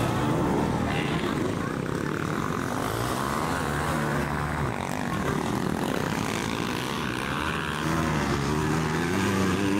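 Motocross bikes' engines revving on and off the throttle as they ride the dirt track, several tones rising and falling over one another. The nearest bike gets louder near the end as it accelerates out of a turn.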